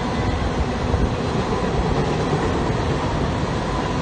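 Freight train's covered hopper cars rolling past: a steady rumble and clatter of steel wheels on rail.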